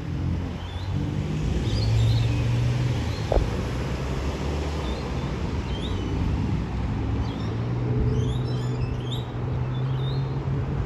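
Alstom Citadis 302 tram approaching slowly with a steady low hum, with a single click about three and a half seconds in. Small birds chirp now and then.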